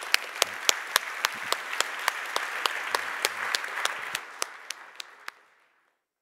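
Audience applauding, a dense patter of hand claps with some louder single claps standing out, thinning out and stopping about five and a half seconds in.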